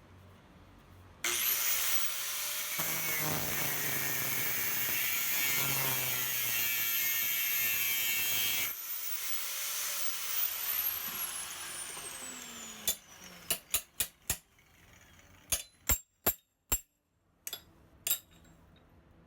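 A power tool starts suddenly and runs steadily for about seven seconds, then is switched off, its high whine falling as it spins down. After that comes a string of sharp metallic clicks and knocks.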